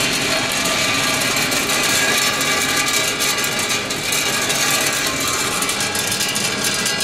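BL30 colour sorter running on roasted peanuts: a steady mechanical clatter of nuts rattling through its stainless-steel feeder and chutes, with rapid fine clicking throughout.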